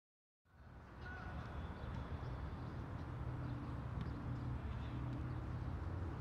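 Outdoor background sound at a football pitch: a steady low rumble with a few faint distant calls above it. It cuts in suddenly about half a second in, after dead silence.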